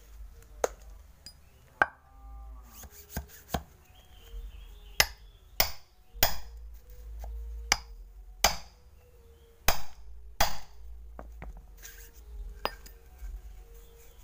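About a dozen sharp, uneven knocks of a metal rammer being driven down into a cardboard firecracker tube standing on a stone slab, tamping a clay plug into the base of a sreng dor rocket before the powder goes in.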